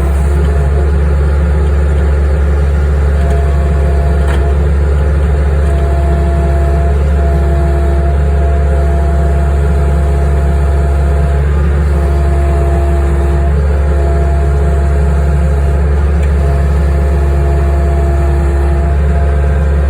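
Skid steer engine running steadily with a deep, constant drone. A higher whine comes and goes every couple of seconds over it.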